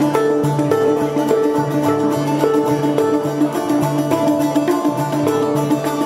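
Kopuz, a Turkic plucked lute, and a handpan (hang drum) played together in an improvisation: a plucked-string melody over a steady, repeating pattern of low ringing handpan notes.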